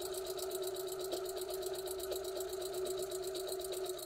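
Necchi electric sewing machine running steadily while stitching a seam through fabric, its needle going at about ten stitches a second over the motor hum.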